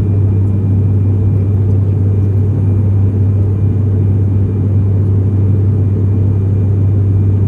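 Steady low drone of a passenger aeroplane's cabin in flight, engine and airflow noise holding level throughout.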